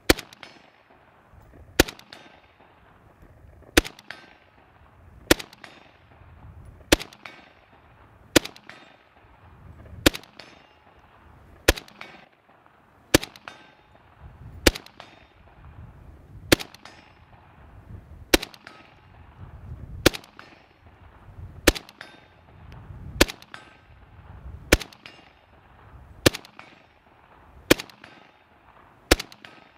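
Romanian WASR-10 UF underfolder AK rifle firing 7.62x39 in slow, steady semi-automatic fire, about one shot every one and a half seconds, each shot trailing off in echo.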